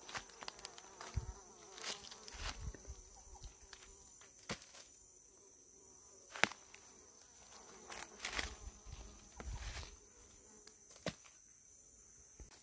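An insect buzzing close by over a steady high-pitched hiss, with scattered sharp clicks and a few soft low thumps.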